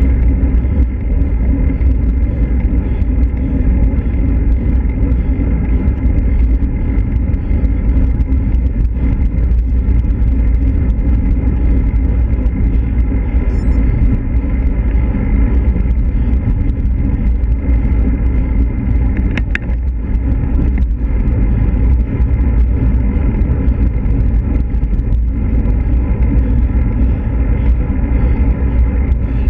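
Steady wind rumble on a handlebar-mounted camera's microphone, with road-bike tyres running on asphalt. A brief high chirp comes about twenty seconds in.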